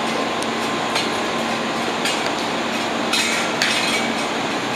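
Steady noise of a railway station platform with an electric train standing at it, its running hum under the din. There are a few light clinks, and a short burst of hiss about three seconds in.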